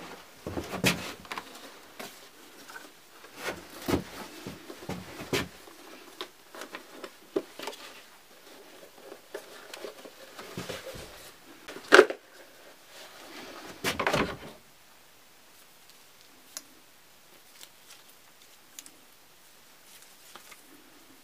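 An old leather case being handled and opened by hand: scattered clicks, knocks and rustles, the loudest a single sharp click a little past halfway, then the handling grows sparse and faint near the end.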